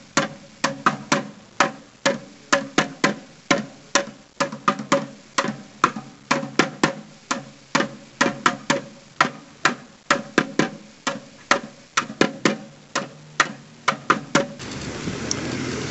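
A white plastic bucket beaten as a drum: a steady rhythm of sharp, ringing strikes, about three a second, that stops about a second before the end.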